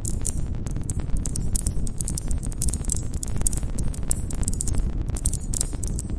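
Wood campfire burning: a dense run of irregular sharp crackles and pops over a steady low rumble of the flames.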